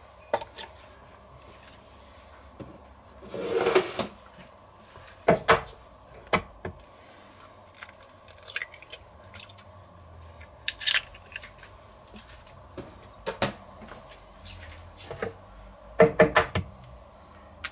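Scattered sharp knocks and clicks as eggs are tapped and cracked on the rim of a Thermomix TM5's stainless-steel mixing bowl, with shell handling in between. The loudest is a quick double knock near the end.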